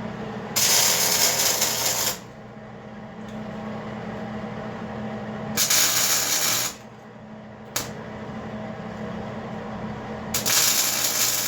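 Arc welder laying three short tack welds, each a burst of about a second or a little more, with one sharp click between the second and third, over a steady low electrical hum.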